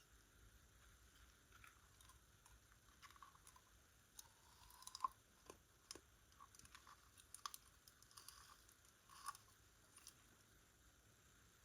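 Slime being kneaded and stretched by hand, quiet sticky clicks and crackles, with a cluster of sharper pops from about four to ten seconds in.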